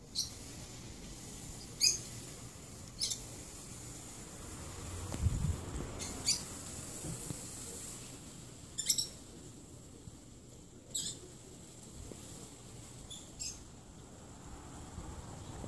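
Short high-pitched bird chirps, about seven in all, spaced one to three seconds apart, over a faint steady hiss. A brief low rumble comes about five seconds in.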